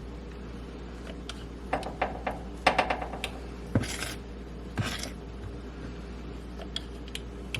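Kitchen utensils clinking and scraping against dishes while batter is spooned out: a cluster of sharp clinks about two to three seconds in, then two short scrapes around four and five seconds.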